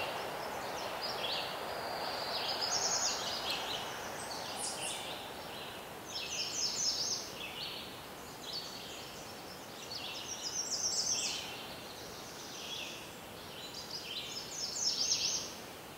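Small birds chirping and chattering in irregular bursts of quick, high notes over a steady background hiss.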